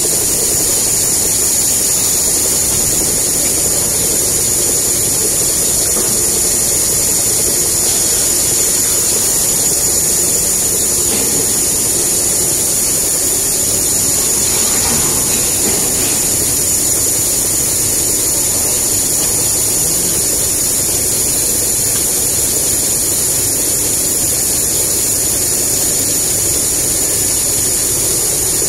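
Maxi jumbo roll toilet paper production line running at speed: a steady high-pitched whine over a constant hiss and a busy low mechanical rumble.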